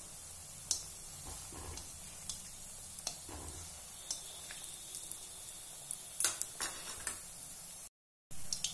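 Pea kofta balls deep-frying in hot oil in a kadai: a steady sizzle with scattered sharp clicks, from a steel spoon that bastes oil over them. The sound cuts out for a moment near the end.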